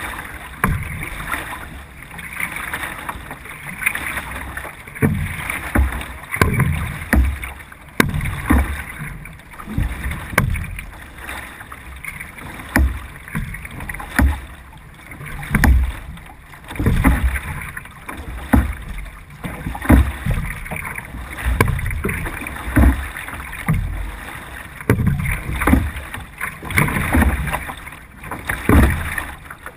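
Racing C1 canoe paddled hard: the blade catches and pulls through the water with a rhythmic splash and thump about once a second, and water rushes along the hull. Heard close up from a camera on the canoe's deck.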